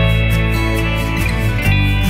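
Background music: a guitar-led instrumental.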